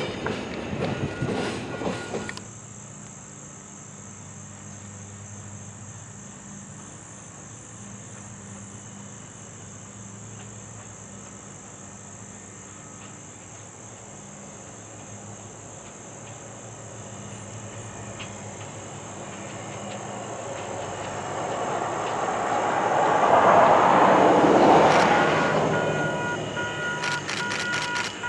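A train's grade-crossing warning rings in repeated tones as a caboose pulls away, cut off after about two seconds. A steady quiet hum with a high thin whine follows. Near the end a rushing noise swells and fades, and the ringing warning tones start again as a diesel train approaches in the distance.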